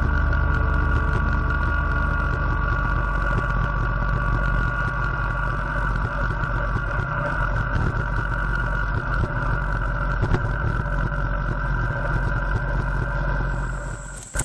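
Kubota compact tractor's diesel engine running steadily, with a steady whine alongside its low rumble.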